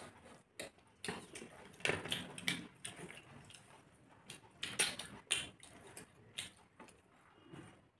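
Eating by hand at close range: irregular chewing and lip-smacking sounds, with soft scrapes and clicks of fingers mixing rice on metal plates. The louder smacks come about a second in, around two seconds in, and near five seconds in.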